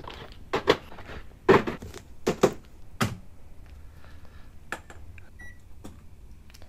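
Objects knocked and handled in a small kitchen: about half a dozen sharp knocks and clatters in the first three seconds, then a few faint clicks and one short high beep about five and a half seconds in.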